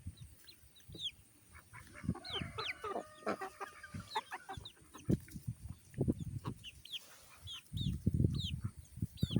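A flock of backyard chickens clucking while they eat, with many short, high, falling peeps over lower clucks. A denser stretch of low clucking comes about eight seconds in.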